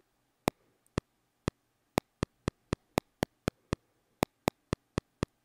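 Cubase 9.5 software metronome playing a custom click pattern. First come evenly spaced clicks about two a second, some accented. About two seconds in they switch to twice that rate, about four a second, with louder and softer clicks and one click left out. This is a 5/4 bar grouped 2+3 followed by a bar with each beat subdivided.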